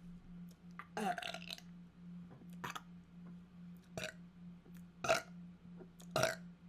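A person burping five times, about a second apart. The first burp, about a second in, is the longest; the rest are short.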